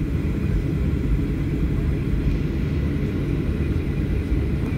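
Cabin noise inside a Boeing 737-900 taxiing: a steady low rumble from the jet engines at idle and the wheels rolling on the taxiway, with a faint thin whine above it.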